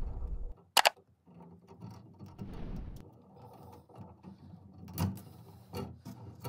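Wire strippers closing on insulated electrical wire and pulling the insulation off: a sharp click about a second in, handling rustle, and a couple of softer clicks near the end.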